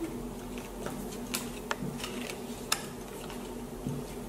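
Playing cards being handled and laid down on a wooden tabletop: a few light clicks and taps, the loudest a little past the middle.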